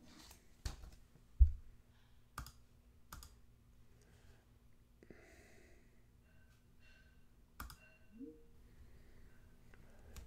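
A few faint, scattered clicks and taps of a computer mouse and keyboard, with one louder low thump about a second and a half in.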